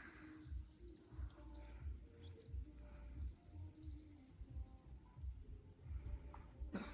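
A faint, high-pitched rapid trill in two bouts of about two seconds each, with a short break between, over a low rumble.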